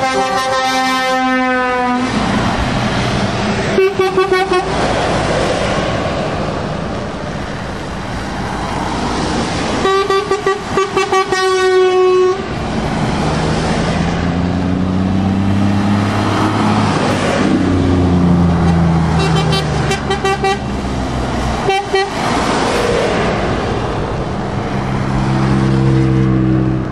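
Heavy trucks passing on a wet road, their air horns blasting several times, with the longest run of blasts in the middle, over diesel engines and tyre hiss. In the second half the engine note rises and falls as trucks pull through.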